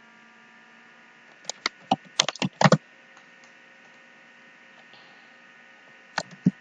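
Typing on a computer keyboard: a quick run of about eight keystrokes between one and a half and three seconds in, then two more near the end.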